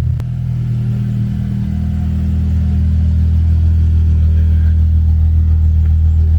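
Car engine idling steadily, its low note dropping slightly about a second and a half in.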